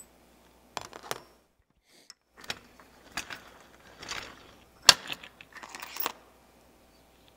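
Metal tools and headset parts being handled on a workbench: irregular clicks, clinks and short rattles, with a brief near-silent gap about two seconds in and one sharp click about five seconds in.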